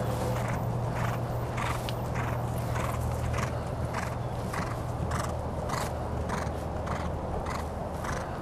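A horse cantering across a grass field: a regular rhythm of hoofbeats in time with its stride, over a steady low hum.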